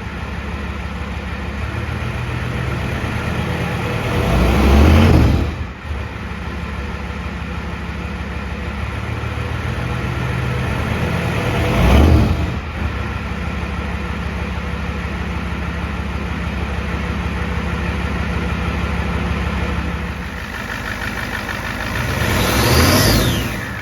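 Turbocharged IDI diesel truck engine idling steadily and revved briefly three times. On the last rev a turbo whistle rises and falls.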